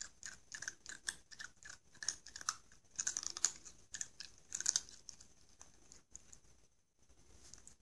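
Cat crunching and chewing food: a quick run of small crisp crunches for about five seconds, then fewer and farther apart.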